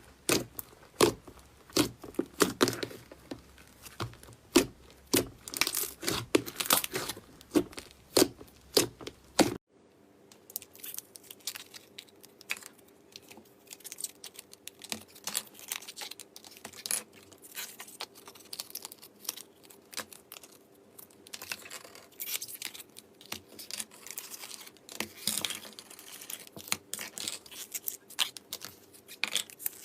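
Slime being squeezed and worked by hand, giving dense, irregular crackling and popping. The crackles are louder at first, then become softer and sparser after an abrupt change about ten seconds in.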